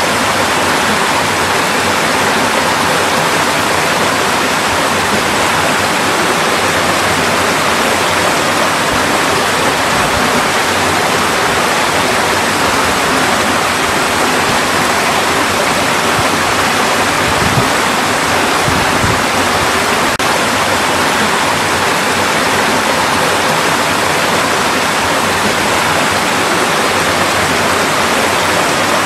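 Mountain valley stream rushing over rocks: a steady, dense rush of flowing water.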